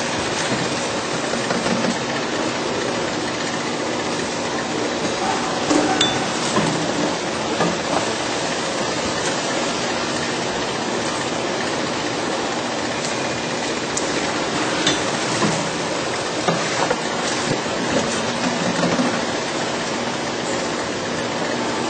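All-Fill Model 1545 multi-head piston filling machine running, filling plastic bottles on a conveyor: a steady mechanical hum with scattered clicks and knocks.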